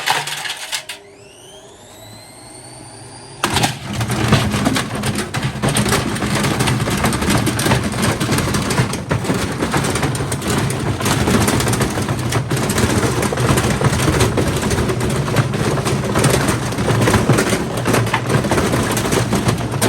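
Hotpoint FMG723 washing machine's motor whining up in pitch as the drum starts to spin. About three and a half seconds in, a sudden loud, continuous rattling and banging sets in over a steady hum.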